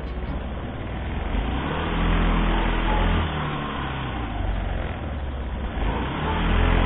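Motor vehicle engine running close by, a low rumble that swells about two seconds in and again near the end.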